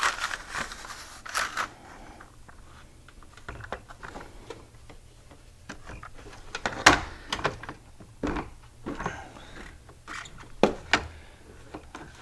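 Stranded electrical wire being pulled through the cabin, scraping and rustling against plastic trim and the door sill with irregular clicks and knocks. A sharp knock comes about seven seconds in.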